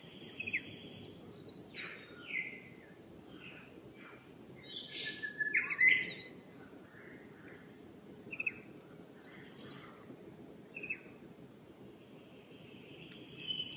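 Dawn birdsong from several birds in forest: scattered short chirps and whistles, busiest about five to six seconds in, with a longer held whistle near the end.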